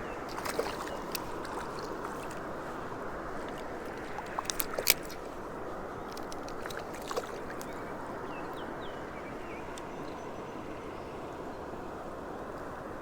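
Steady rush of flowing creek water, with a few sharp clicks and knocks, a quick cluster of them about five seconds in being the loudest.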